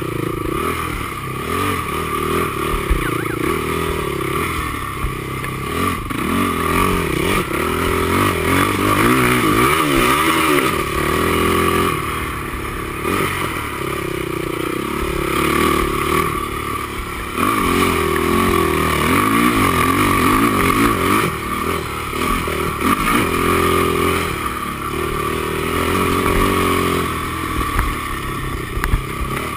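Honda TRX450R quad's single-cylinder four-stroke engine under race load, its revs climbing and falling again and again as the rider accelerates, backs off and shifts.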